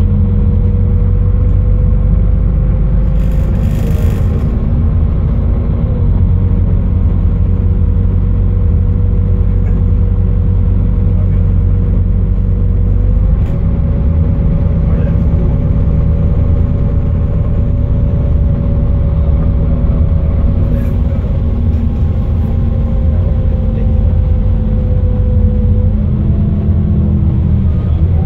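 Solaris Urbino 15 city bus under way, heard from the passenger cabin: its DAF 9.2-litre diesel engine and ZF Ecolife automatic gearbox run with a loud, steady low rumble. A whine rides on top, stepping up in pitch about halfway through, then slowly falling and dropping near the end.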